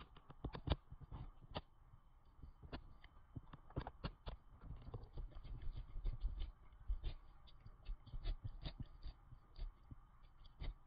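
A cat licking and lapping churu paste close up: a quick, irregular run of small wet clicks, several a second, over a low rumble.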